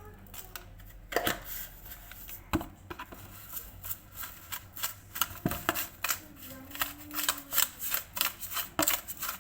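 A fork clicking and scraping against a mixing bowl as margarine and sugar are creamed by hand: irregular sharp taps that come faster in the second half.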